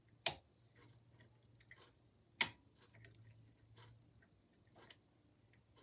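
A bent-nail tension tool and a homemade lollipop pick working the levers inside a Yale 5-lever mortice sash lock: faint metallic ticks and scrapes, with two sharper clicks, one just after the start and one about two and a half seconds in.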